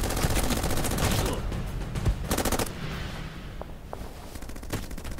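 Rapid machine-gun fire, a fast rattle of shots that thins out and grows quieter over the last couple of seconds.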